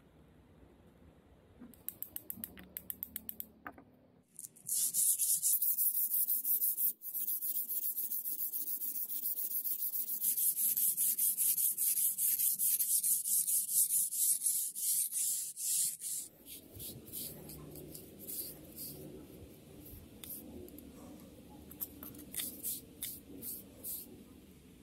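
Kitchen knife blade made from an old steel file being stroked back and forth on a wet whetstone to sharpen its edge. A short run of light, quick strokes gives way to a long, louder stretch of fast, even scraping strokes, and after that come slower, softer strokes.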